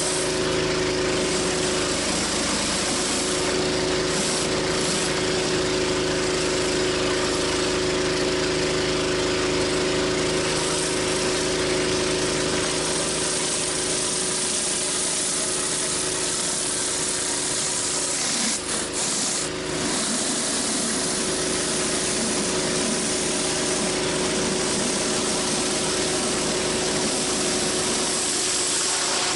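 Pressure washer engine running steadily under the hiss of water jetting from a 14-inch spinning surface cleaner onto concrete. About two-thirds through, the spray breaks off briefly twice while the engine keeps running.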